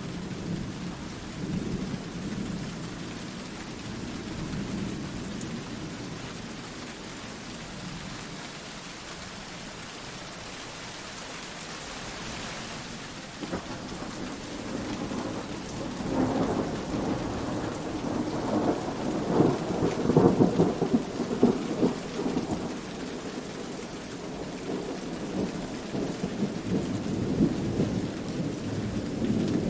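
Steady rain with thunder rumbling, the rumble swelling to its loudest a little past the middle and then easing back.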